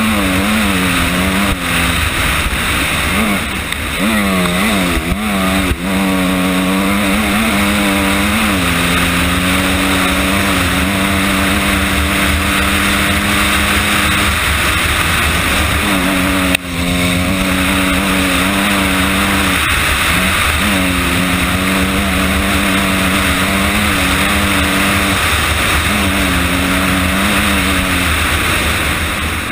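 Honda CRF250R single-cylinder four-stroke dirt bike engine running hard under throttle, its pitch held steady for long stretches and dipping briefly now and then as the throttle is eased and gears change, over a loud rush of wind. A single sharp knock a little past halfway.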